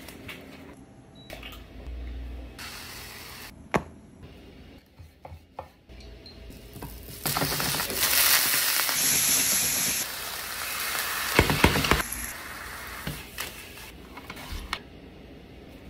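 Tempeh strips sizzling in a hot frying pan as a liquid is poured over them, a loud hiss lasting about five seconds in the middle. Before and after it come shorter kitchen knocks and clatter.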